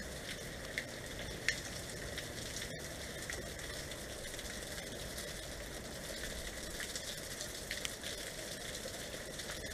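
Steady hiss with scattered light ticks of water drops falling in the wake of a hailstorm.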